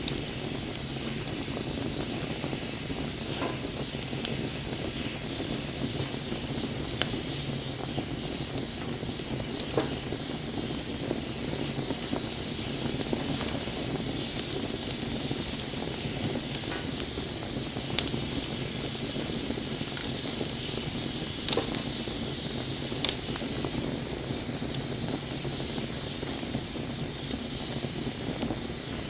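Wood bonfire burning with a steady hiss and scattered crackles, and a few louder pops in the second half.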